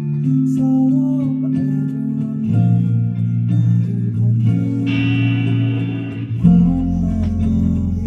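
Band instruments playing during a soundcheck: held guitar chords that change every couple of seconds, with a deep bass note coming in near the end.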